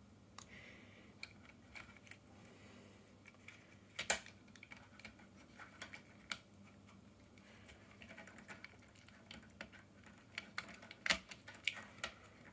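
Faint, scattered plastic clicks and taps as an N-gauge model railcar body is pressed and snapped onto its motorized chassis, with sharper clicks about four, six and eleven seconds in.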